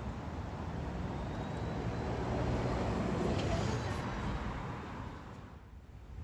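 Rumbling vehicle noise that swells about three seconds in and falls away near the end.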